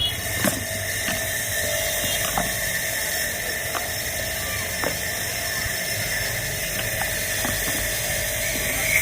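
Small electric motor running at steady high speed with a whirring whine; it starts suddenly and runs without change.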